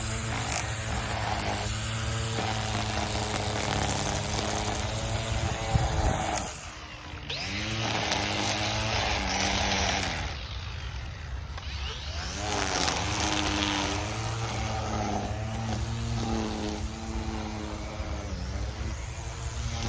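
Small gas engine of a handheld yard tool (leaf blower or string trimmer) running and revving up and down, easing off to a lower speed a couple of times.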